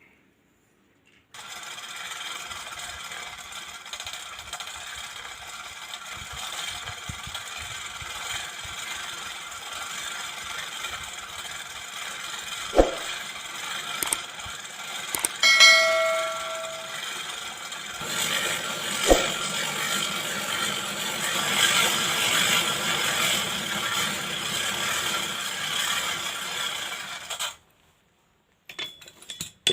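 Steady rushing noise of the fire heating the welded knife blade, with a few sharp metal knocks and one ringing metallic clang about halfway through.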